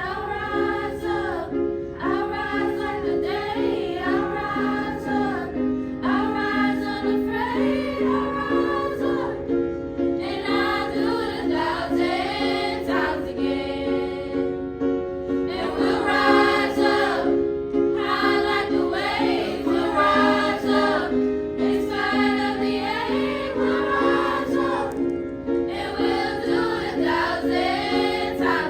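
Music: voices singing in phrases a second or two long over steady accompanying chords.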